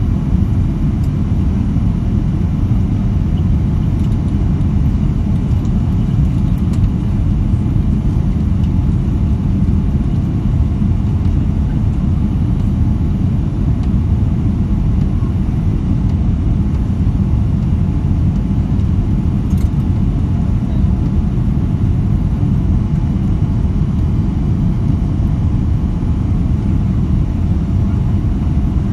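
Boeing 787 Dreamliner's cabin noise during the climb after takeoff: a steady low rumble of engines and airflow heard inside the passenger cabin.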